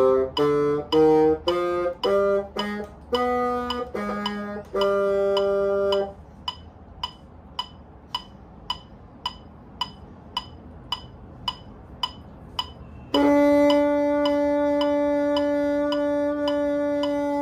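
Bassoon playing a run of short detached notes, ending on a slightly longer one, then falling silent for about seven seconds while a metronome ticks about twice a second. Near the end the bassoon comes back in with one long held note over the ticking.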